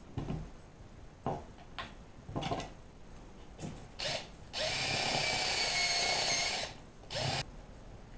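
Cordless drill with a step bit boring a hole in a thin plastic battery-case lid. It gives a few short trigger blips, then runs steadily for about two seconds with a constant whine, then one last short burst.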